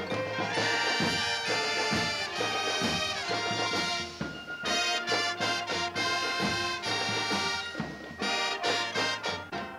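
Marching band playing live, brass section leading with full chords and sharp accented beats. The sound drops off briefly about four seconds in and again near eight seconds.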